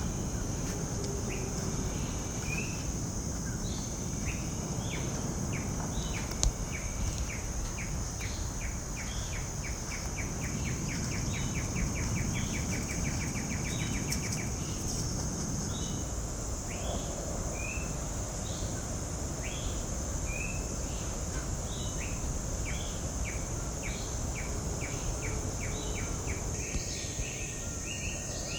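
Tropical coastal wildlife ambience: a steady high-pitched insect drone with birds calling in short scattered notes. In the middle, one bird gives a fast run of evenly repeated notes for about six seconds. A steady low rushing runs underneath.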